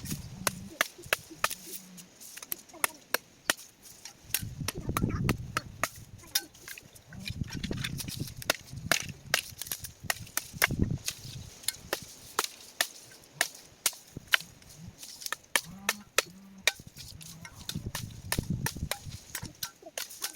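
A long run of sharp, irregular knocks and clicks, several a second, with a few duller thumps among them.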